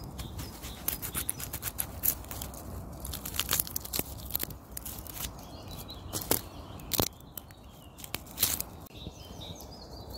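Dry, papery onion skin being peeled and torn off by hand, giving a run of irregular crackles and sharp snaps, with a knife starting to cut into the peeled onion near the end.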